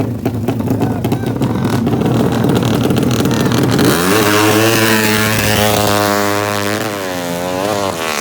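Drag-racing engine running roughly at low revs, then about halfway through revving hard with its pitch climbing steadily for some four seconds before dropping away near the end.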